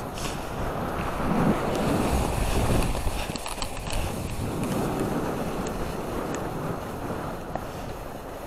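Skis sliding and carving on packed groomed snow, with wind rushing over the microphone. The scraping swells with each turn, loudest in the first half, and eases near the end as the skier slows.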